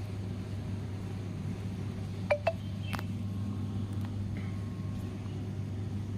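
A steady low hum, like a motor or generator running. About two seconds in come two short metallic clinks in quick succession, then a sharp click.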